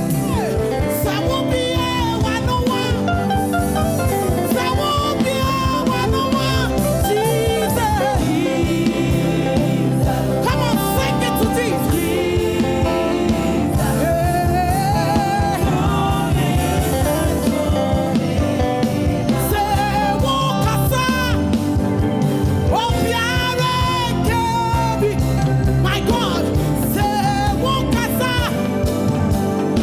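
Background music: a song with singing over a band, playing steadily.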